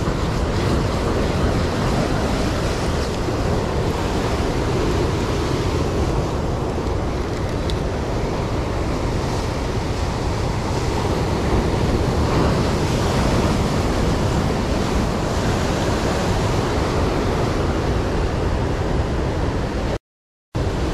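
Rough surf breaking and washing over shore rocks, with wind buffeting the microphone: a steady, loud rush of noise. It cuts out for a moment near the end.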